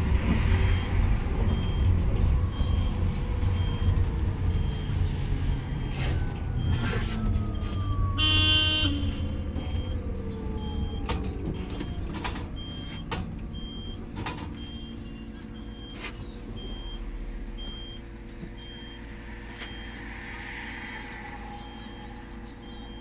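Golden Dragon Astar electric city bus's 100 kW traction motor whining and falling in pitch as the bus slows, with the rolling rumble dying away. A high beep repeats steadily about every 0.7 s, a short electronic tone sounds about eight seconds in, and a few clicks follow.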